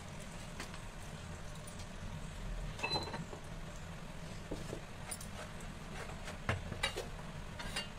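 Lit gas stove burner giving a low steady hum under a tawa, with a few light clicks and knocks scattered through.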